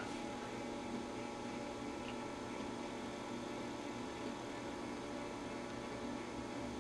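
Steady mains hum with faint hiss from powered bench test equipment.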